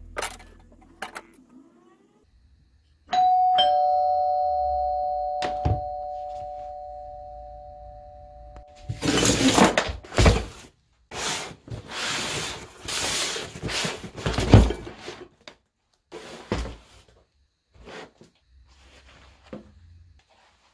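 Two-tone doorbell chime: a higher ding, then a lower dong about half a second later, both ringing on and fading over several seconds. After it comes a few seconds of rustling handling noise with two heavy thuds.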